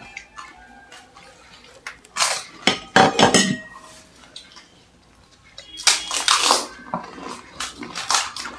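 Pani puri being eaten: crisp puri shells cracking and crunching, with clinks and taps against clay pots and steel bowls, in two louder spells about two and six seconds in and lighter clicks near the end.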